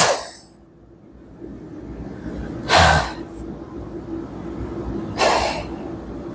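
Gravity-feed paint spray gun giving two short hissing blasts of compressed air, about three and five seconds in, over a steady low hum.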